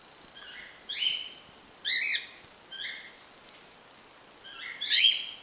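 Cockatiel giving a series of short chirping calls, about one a second, then a pause before a longer, loud call near the end.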